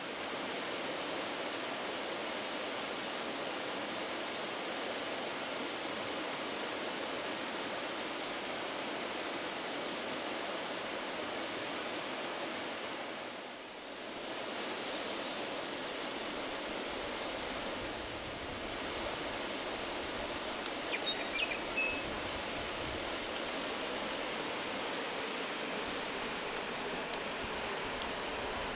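River water rushing steadily over rapids, with a short dip about halfway and a brief high chirp about three-quarters of the way through.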